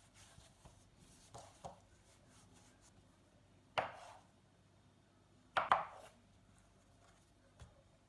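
Kitchen knife cutting a log of dough into pieces on a countertop. The loudest sounds are two sharp knocks of the blade striking the counter, about two seconds apart near the middle, with a few softer taps before and after.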